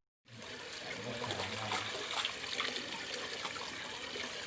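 Water running and trickling steadily, as from an inflow pouring into a fish pond.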